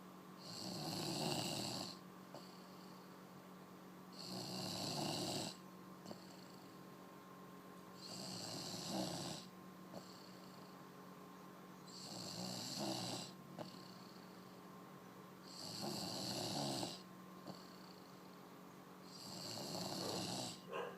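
Snoring: six long, rasping breaths at an even pace, one about every three and a half to four seconds.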